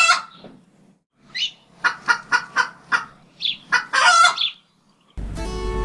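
A chicken clucking: runs of short, sharp calls in quick succession. Music starts near the end.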